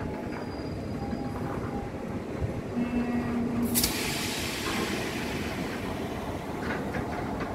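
BRN flat wagons of a rail-laying train rolling past, a steady rumble of wheels on the rails with brief faint squealing tones. About four seconds in a sudden loud hiss starts and fades over the next second or so.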